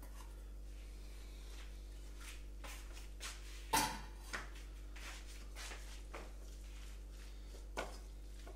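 A few scattered knocks and clatters of a kitchen drawer and utensils as a knife is fetched, the loudest about four seconds in, over a steady low hum.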